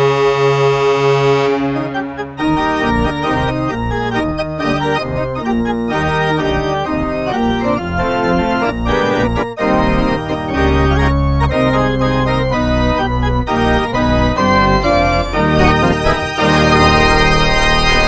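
The Blues' goal horn sounds one steady, pulsing blast that stops about a second and a half in. After a short gap, organ music plays quick runs of notes and gets fuller and louder near the end.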